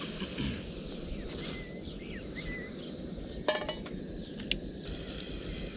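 Outdoor ambience: birds chirping briefly over a steady low rumble, with a sharp ringing clink about three and a half seconds in and a lighter one a second later.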